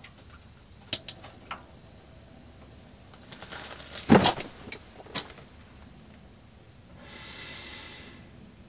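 An angler's handling noises inside an ice-fishing hut: a few light clicks, then a cluster of knocks with one louder thump about four seconds in as he moves from his gear into his seat, another click, and a soft rustling hiss near the end.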